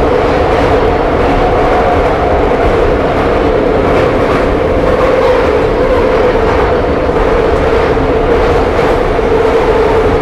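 Interior running noise of a Soviet-built 81-717/714 metro car travelling through the tunnel: a loud, steady rumble and rattle with a droning whine that drifts slightly lower.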